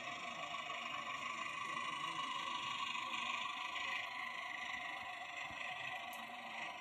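Steady background noise, an even hiss with no distinct events.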